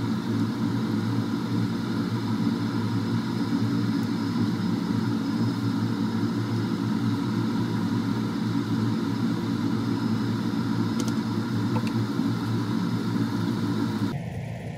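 Steady low rumbling hum from a gas stove in use, with cherry tomatoes simmering in a frying pan and a spatula stirring them; a few faint light ticks.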